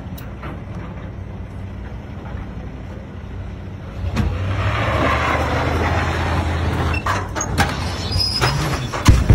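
Chevrolet pickup truck's engine running steadily under load, then revving hard from about four seconds in as it strains to pull a boat on its trailer across loose dirt, with the hiss and spatter of wheels spinning and throwing up dirt. Scattered clicks and one sharp loud knock come near the end.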